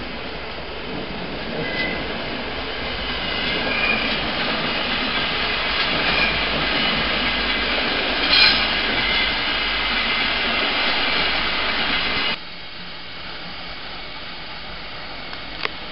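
A Pendolino tilting train running into a station, with rolling noise that builds and brief high wheel and brake squeals. About twelve seconds in, the sound drops suddenly to a quieter steady rumble.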